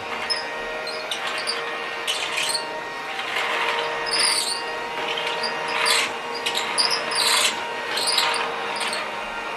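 Children's toy vacuum cleaner's small battery motor running with a steady whine, with irregular hissy rustling bursts over it.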